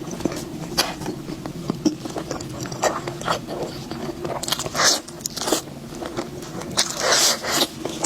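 A person biting and chewing food close to the microphone, in irregular bites, with louder ones about halfway through and near the end.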